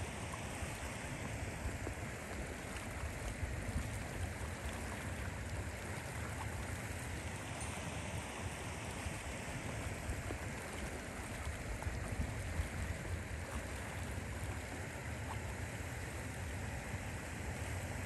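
Steady rushing outdoor noise with a low, fluttering rumble underneath, unchanging throughout.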